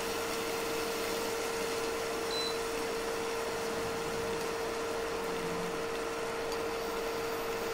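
A steady mechanical hum with an even hiss, as from a small motor-driven kitchen appliance running without change.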